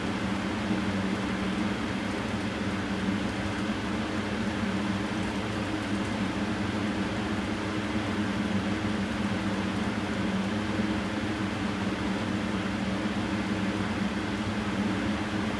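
Steady low machine hum with a constant drone and even background noise, unchanging throughout.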